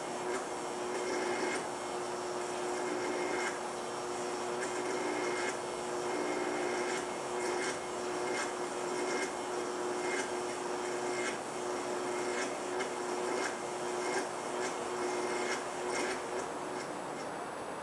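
Homemade flux capacitor prop's electronic hum-and-buzz sound effect: a steady electric hum under a noisy buzz, with irregular crackles.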